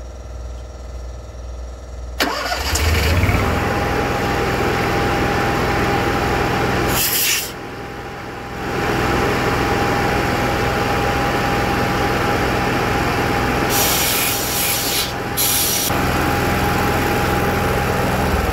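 Onan RV generator engine starting abruptly about two seconds in and then running steadily under the compressor's hum. A few short hissing blasts of compressed air from an air wand come partway through and near the end.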